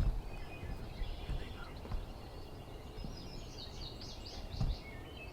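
Outdoor wind and handling rumble with a couple of low thumps, one near the start and one near the end. From a little past halfway a small bird sings a series of short, high, falling chirps.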